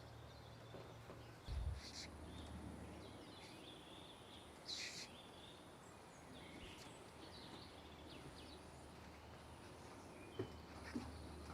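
Faint outdoor ambience with scattered short bird chirps, a thin high steady tone that breaks off a few times, and a low thump about a second and a half in.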